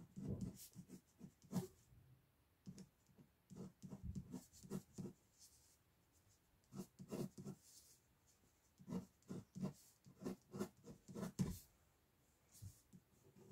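Pen scratching on paper in quick sketching strokes, coming in short runs with brief pauses between them.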